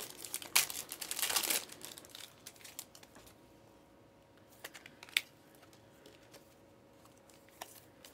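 A foil trading-card pack being torn open and crinkling in the hands, loudest in the first second and a half. After that the cards are handled quietly, with a few soft clicks.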